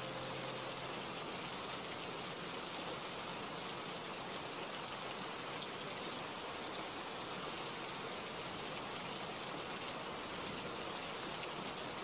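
Steady rain falling: an even, unbroken hiss with no thunder or single drops standing out.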